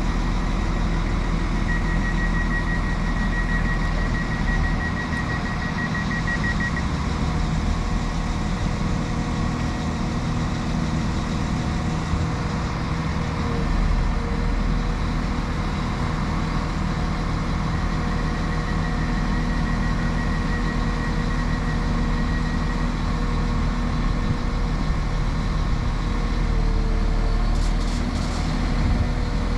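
Northern class 195 diesel multiple unit running at the platform, a steady engine drone. Twice, about two seconds in and again near twenty seconds, a rapid high-pitched electronic beeping sounds for about five seconds.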